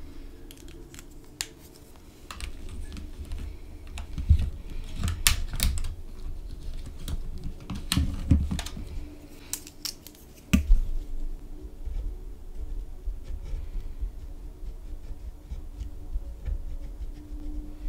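Plastic gel pens being handled in a clear plastic pen pouch: a run of sharp plastic clicks and taps from pen barrels and caps as pens are put back and picked out. Then a gel pen scratches small colour swatches on paper.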